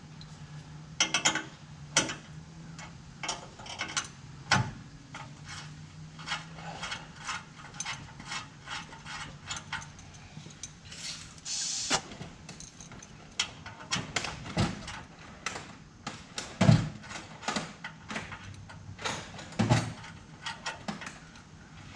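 Hand tools being handled: irregular metallic clicks and clinks of wrenches and sockets, with a short hiss about halfway through.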